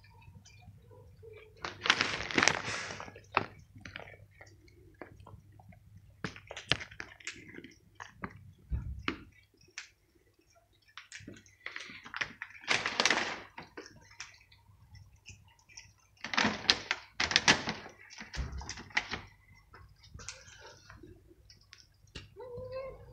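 Stray cats crunching dry kibble off stone paving: irregular small crunches and clicks, broken by four louder rustling bursts about a second long.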